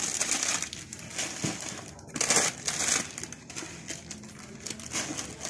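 Plastic instant-noodle packets and a plastic rice bag crinkling and rustling as they are handled and packed into a plastic bucket, irregular, with a louder burst a little after two seconds in.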